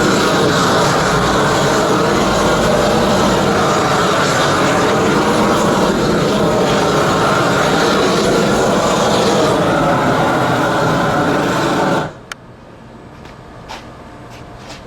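Propane roofing torch running with a steady roar as torch-down roofing membrane is heated onto a flat-roof patch, cutting off suddenly about twelve seconds in; a few faint clicks follow.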